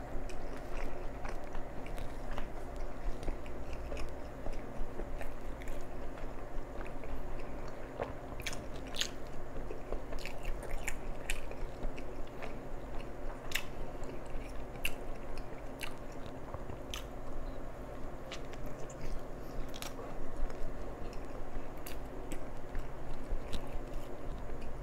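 A person biting into and chewing a chicken sandwich in a soft bread roll, close to the microphone: a steady run of many short mouth clicks, over a steady low hum.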